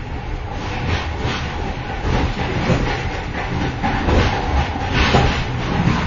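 Inside the vestibule between cars of a moving train: a steady low rumble of wheels on the track with irregular clattering and rattling, growing louder about two seconds in.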